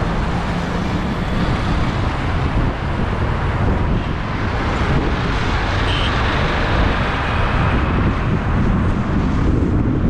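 Steady road noise of a car driving through town traffic: engine, tyres and rushing air mixed into a constant rumble.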